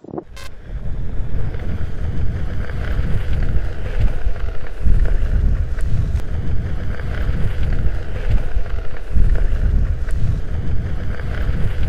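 Wind buffeting the microphone of a camera moving fast outdoors: a loud, low rumble that swells and dips in gusts, with a faint hiss above it.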